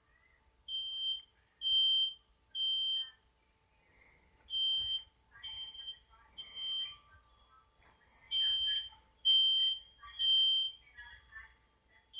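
Smoke alarm beeping in the three-beep evacuation pattern: three short, high beeps about a second apart, a pause, then another three, repeating. It is a smoke detector sound video played back through a device's speaker.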